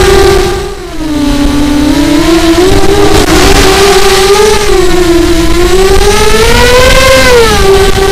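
Nighthawk 280 quadcopter's brushless motors and propellers whining in flight. The pitch and loudness drop sharply about a second in, then the pitch rises and falls over and over. Wind rumbles on the microphone underneath.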